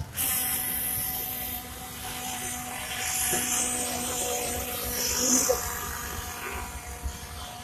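Nitro-fuelled remote-control cars running, a steady high-pitched buzzing drone of their small engines with a hiss over it.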